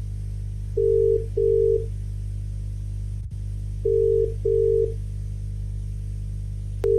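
Fan-made emergency alert alarm: a steady low hum under pairs of short beeps, the pairs repeating about every three seconds.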